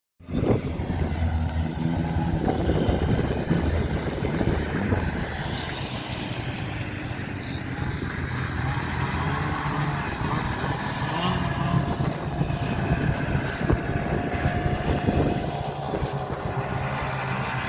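Racing vehicles' engines running: a steady engine drone with several pitched tones over road or wind noise.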